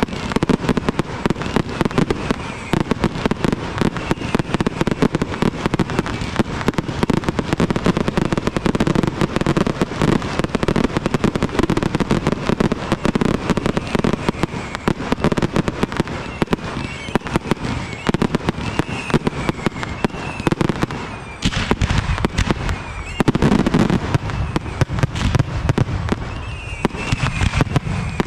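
Fireworks display fired close by: a rapid, continuous string of launches, pops and bangs from ground-fired comets and aerial shells. A heavier bang comes about twenty seconds in, and the firing is dense again near the end.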